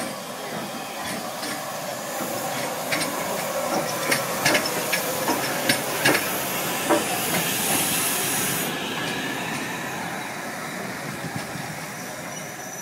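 Steam locomotive standing at the station platform, venting steam with a loud hiss that cuts off suddenly about nine seconds in. A run of sharp knocks and clunks sounds in the middle, over the steady noise of the train.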